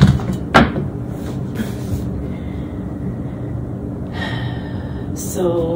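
A person breathing and sighing audibly, with a short voiced hum near the end, and two sharp clicks near the start, about half a second apart.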